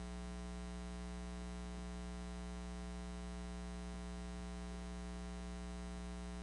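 Steady electrical mains hum and buzz, a low drone with many fixed overtones that does not change.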